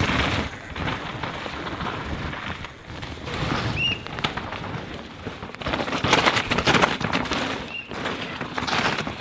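Downhill mountain bikes passing on a wet dirt course: tyres in mud and rattling bikes come and go in several rushing passes, the loudest about six to seven seconds in. A few short high chirps, like bird calls, sound between the passes.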